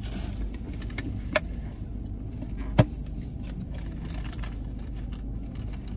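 Eating sounds: a few sharp crisp snaps of food being bitten or crunched, the loudest about three seconds in, over a steady low rumble.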